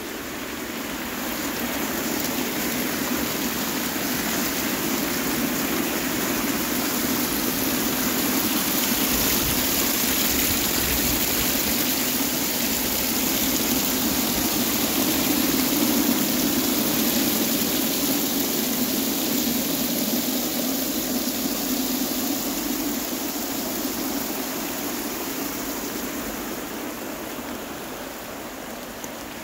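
Garden fountain splashing: jets bubbling up and water spilling over the rim of the stone basin in a steady rush. It grows louder toward the middle and fades near the end.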